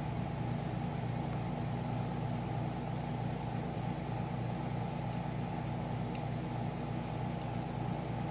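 Air conditioner running with a steady hum, and a couple of faint small clicks late on.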